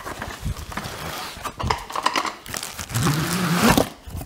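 Plastic packaging crinkling and rustling as the bagged accessories of a new pull-up bar are handled and unpacked, busiest about three seconds in, with a short low humming sound at the same moment.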